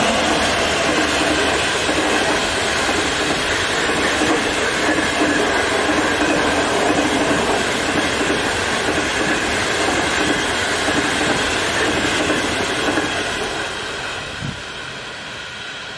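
Passenger train of coaches hauled by an electric locomotive running past: a steady rumble of wheels on rail with a rhythmic clickety-clack over the rail joints, fading over the last few seconds as the train draws away.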